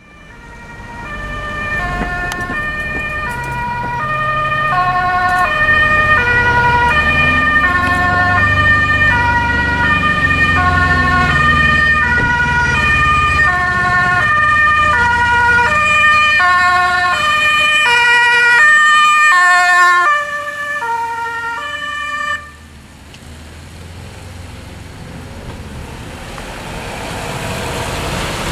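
Dutch ambulance siren on an emergency run, stepping back and forth between a high and a low note, with the Mercedes ambulance's engine running underneath as it comes past. The siren cuts off about three quarters of the way through, leaving quieter road noise that rises again near the end.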